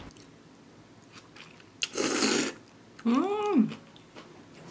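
A short hiss lasting about half a second, then a brief wordless vocal 'ooh' that rises and then falls in pitch.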